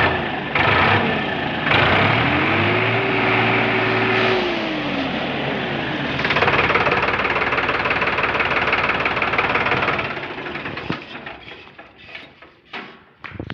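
Sonalika 745 tractor's three-cylinder diesel engine revved up and back down twice, then held loud and steady. About ten seconds in the sound drops away, and a few sharp knocks follow near the end.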